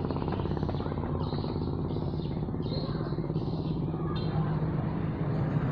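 An engine running steadily with an even, low pulsing. A few short high chirps sound over it between about one and four seconds in.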